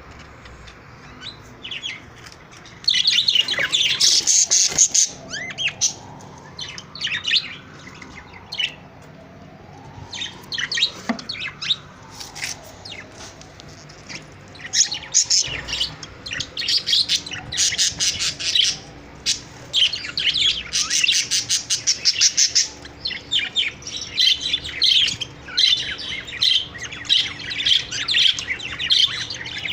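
A flock of budgerigars chirping and chattering in dense bursts, louder from about three seconds in.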